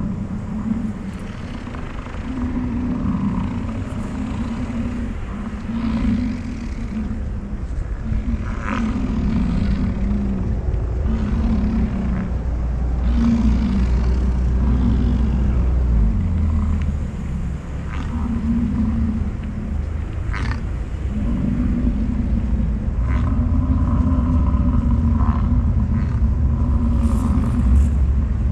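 Bull American bison bellowing in the rut: deep, rolling roars repeated about once a second over a low rumble, with a few short, sharp knocks.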